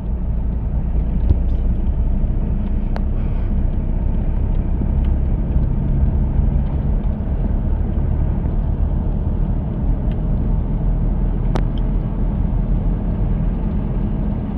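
A car travelling on a paved road: a steady low rumble of engine and road noise, with two faint ticks.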